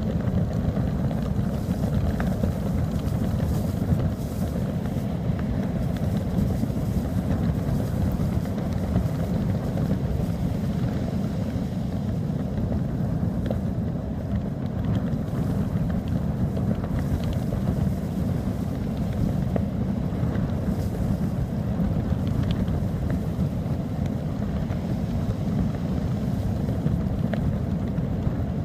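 Strong wind buffeting the microphone in a steady low rumble, with loose trousers flapping in the wind.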